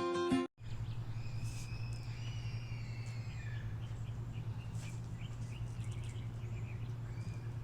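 Wild birds singing outdoors: long thin whistled notes, some gliding down, in the first few seconds, then scattered short chirps, over a steady low hum. A strummed acoustic guitar cuts off about half a second in.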